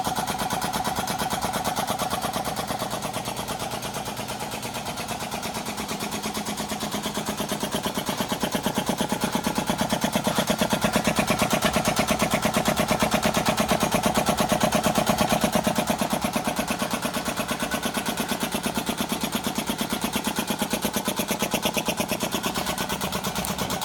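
Old single-cylinder, belt-driven electric air compressor running steadily, its piston pumping in a fast, even beat as it slowly builds up tank pressure.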